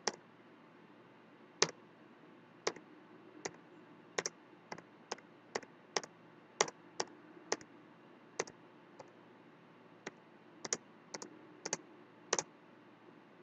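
Sharp single clicks from a computer's controls, about twenty at irregular intervals, each one advancing the slide animation. A faint steady hum lies underneath.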